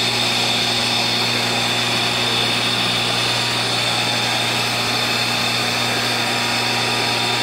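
Steady hum of an electric motor running continuously, over a hiss of flowing water.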